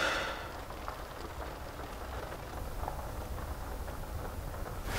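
Quiet ambience inside a parked car: a steady low hum under a faint hiss, with one short soft noise right at the start.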